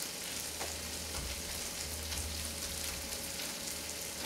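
Steady sizzle of food frying in a pan on the stove, with a faint click about half a second in.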